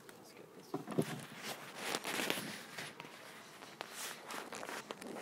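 Handling noise as gloved hands work bee comb and wooden hive frames: a sharp knock about a second in, then rustling and scraping and a few light clicks.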